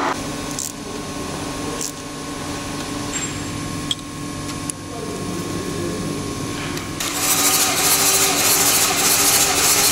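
Toyota 1VD-FTV V8 diesel being cranked on the starter for a compression test, a steady mechanical drone. About seven seconds in, a loud hiss of air joins it and runs on.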